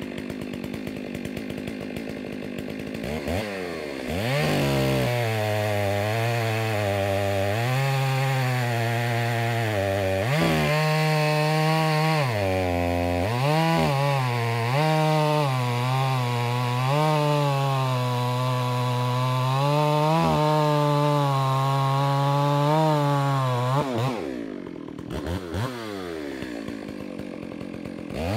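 Warmed-up Holzfforma G388 72cc two-stroke chainsaw, a Stihl 038 Magnum clone, idling briefly, then revving to full throttle and cutting through a large log. Its pitch dips and recovers over and over as the chain loads up in the wood. A few seconds before the end it falls back to idle, then revs up again.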